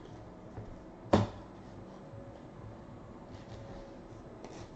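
A thick stack of trading cards set down on a tabletop with one sharp knock about a second in, followed by a few faint rustles of cards being handled.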